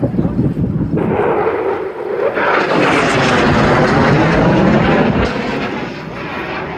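Jet noise from a diamond formation of USAF Thunderbirds F-16 fighters passing overhead. It is a loud, rough roar that swells to its loudest about three to five seconds in and then eases off.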